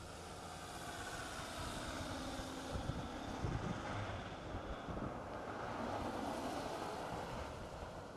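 Pickup trucks driving slowly past, engine and tyre noise swelling to a peak in the middle and easing off toward the end.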